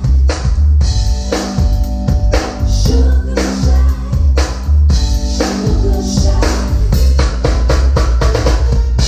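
A live band playing, led by a drum kit: regular kick-drum and snare hits with rimshots over a heavy bass line and held chords.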